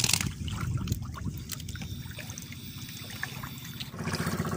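Water trickling and dripping off a wet fishing net as it is hauled by hand over the side of a small boat, with small splashes and ticks. Near the end a motor engine's steady low running comes in.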